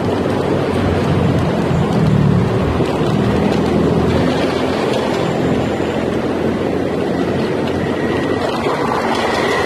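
Steady rush of wind and road noise from riding a small 250 W, 24 V electric kick scooter over rough asphalt, with a faint high whine near the end.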